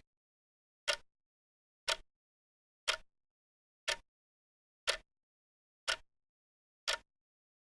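Clock ticking, one sharp tick each second, with dead silence between ticks.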